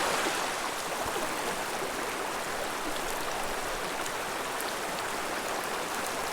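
Steady rush of flowing water from a small mountain stream, an even hiss with no distinct splashes or breaks.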